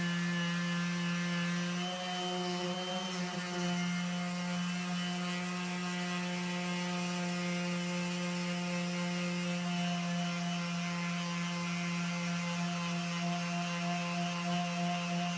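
Electric power sander running steadily on fiberglass gelcoat, a constant motor hum that wavers briefly about two to three seconds in.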